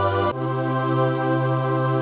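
Choir sound effect holding sustained chords, moving to a new chord about a third of a second in.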